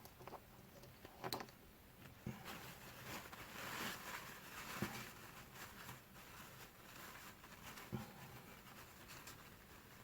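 Faint handling sounds of small parts being dried by hand: a few light clicks and a soft rustle.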